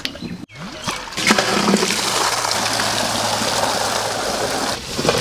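Water pouring or running in a steady stream, starting about a second in and stopping near the end.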